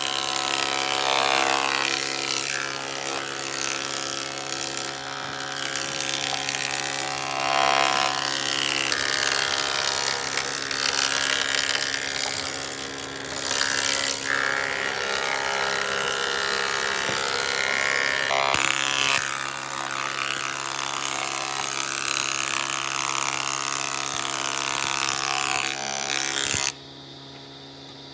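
Electric woodworking power tool running steadily, its motor hum under the hiss of wood being cut. It cuts out abruptly near the end.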